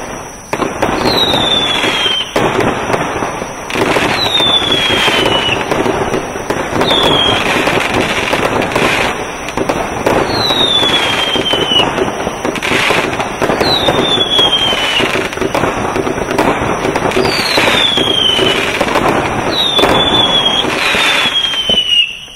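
Pyrostar Sushi 192-shot aerial finale set, consumer repeater cakes, firing in a continuous barrage of pops, bangs and crackle. About ten whistles slide down in pitch, one every couple of seconds. The barrage stops suddenly just before the end.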